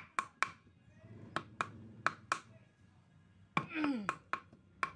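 A big knife chopping dried coconut-husk fibre on a wooden block: sharp knocks of the blade hitting the wood, mostly in quick pairs, each with a short ring. A brief grunt-like vocal sound about three and a half seconds in.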